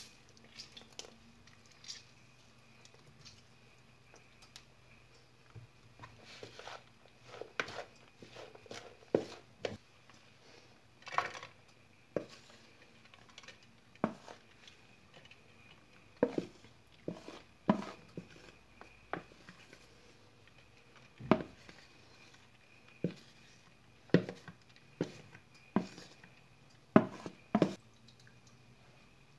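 Wooden spoon working a bulgur salad in a plastic bowl and scraping it out into a glass dish. The sound is an irregular run of knocks, taps and short scrapes, sparse at first and louder and more frequent from about six seconds in.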